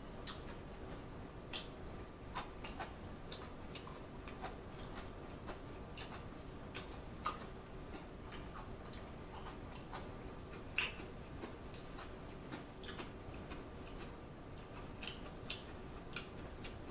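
A person chewing raw cucumber close to the microphone: faint, irregular crisp crunches and mouth clicks, about one or two a second.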